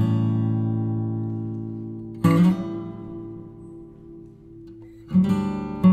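Background music on acoustic guitar: a chord strummed near the start, another just after two seconds and a third near the end, each left to ring and fade.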